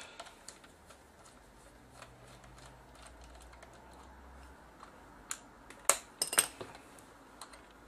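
Small handling noises on a camcorder body: a faint low hum, then a few sharp clicks and taps, loudest about six seconds in, as a screwdriver is set into a side-panel screw.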